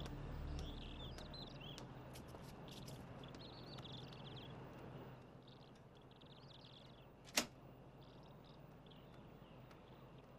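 Small birds chirping faintly and repeatedly over quiet room tone, with a wooden door clicking shut once about seven seconds in.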